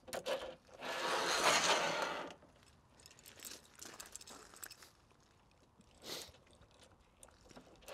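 A metal ladder bracket sliding along the channel of a TentBox Cargo roof tent's shell, with the tent fabric rustling as it is lifted aside. A rustling scrape about a second in, then a few faint clicks and a short scrape near six seconds.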